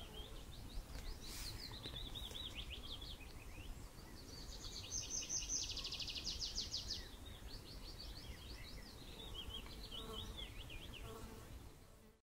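Outdoor natural ambience: repeated high chirps with a fast trill in the middle, over a low rumble, cutting off suddenly near the end.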